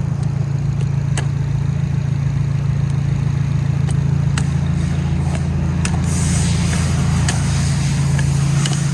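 Nissan SR20DET four-cylinder engine idling steadily, with a few light ticks. A high hiss joins about six seconds in.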